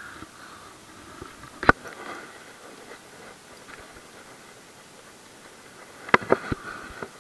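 Handling noise from a spinning rod and reel: one sharp click about two seconds in, then a quick run of several clicks and knocks near the end, over a faint steady hiss.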